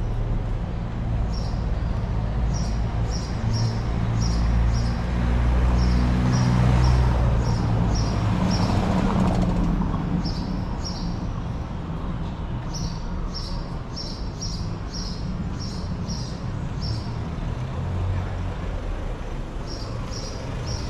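City street ambience on a cobbled street: a low traffic rumble, swelling as a vehicle passes a third of the way in, with runs of short high chirps repeating about twice a second.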